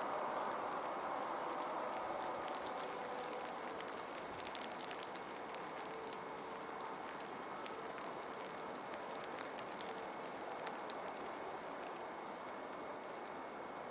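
Steady outdoor hiss with scattered faint ticks, like light rain falling. A faint steady tone sits underneath and dies away about ten seconds in.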